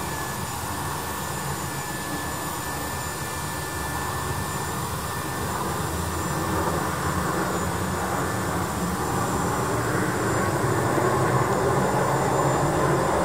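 Sukhoi Superjet 100's two PowerJet SaM146 turbofans on landing approach, passing overhead: a steady jet rumble with a thin high whine, growing gradually louder as the airliner comes closer.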